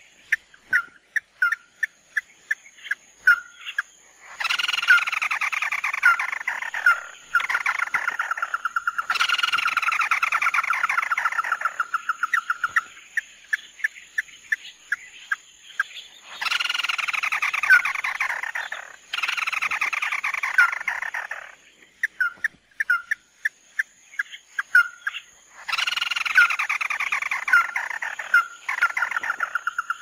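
Red-legged crake calling: sharp single notes repeated about two a second, broken three times by long, rapid, descending rattling trills that last several seconds each.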